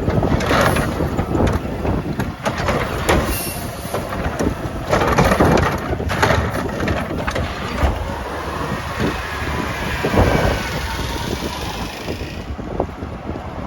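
Mack LR garbage truck with a McNeilus Meridian body and Curotto Can arm, working a pickup: a run of metal clanks and bangs, then a steady whine over the running truck that drops away about twelve seconds in.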